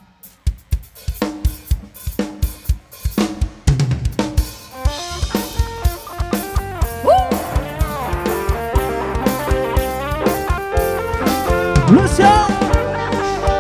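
Live drum kit playing a steady beat of bass drum and snare on its own, then about four seconds in bass and other band instruments join in an instrumental passage over the beat.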